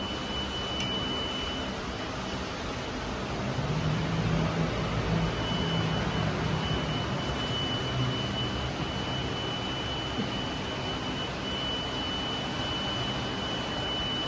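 Factory machinery running: a steady mechanical noise with a thin high whine that drops out now and then and a low hum that grows a little louder for a few seconds in the middle.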